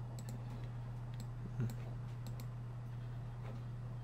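Computer mouse clicking now and then over a steady low electrical hum, with one soft knock about one and a half seconds in.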